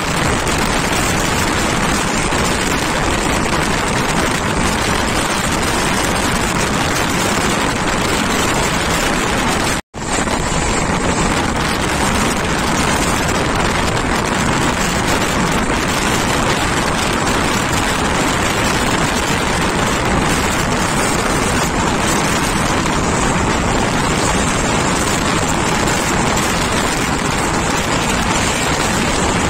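Express passenger train running at speed: a steady loud rush of wheel-on-rail noise and wind from the open coach door. The sound cuts out for an instant about ten seconds in.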